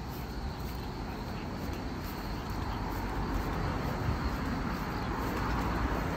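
Steady outdoor street background: an even hiss with a low rumble, without distinct events.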